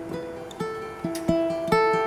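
A plucked string instrument of the guitar family playing a picked melody. Single notes ring on, a few notes a second.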